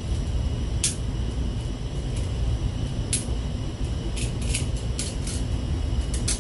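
Light, sharp clicks and taps of small metal and plastic rod fittings (clamps, swivel snaps, holders) being handled and set down, about eight in all, the last pair near the end, over a steady low hum.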